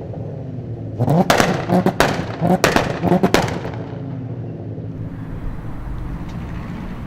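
Swapped 2.8 V6 engine in a VW Golf 3 revving with a rapid series of loud exhaust pops and bangs from about one to three and a half seconds in, then settling to a steady, quieter run.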